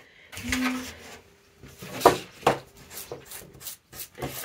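Tissue paper rustling as it is handled and smoothed out on a desk, with a run of sharp knocks and taps from things being moved, the two loudest close together about two seconds in.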